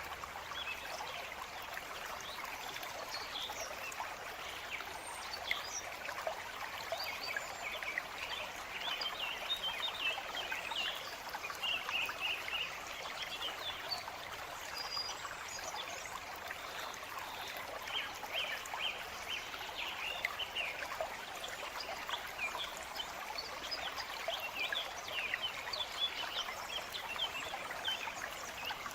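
A forest stream trickling and splashing steadily, with birds chirping now and then.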